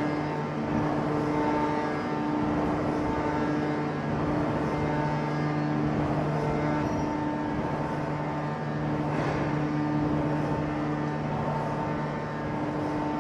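Steady drone of heavy forge-shop machinery, with several humming tones, some held throughout and others cutting in and out every second or two.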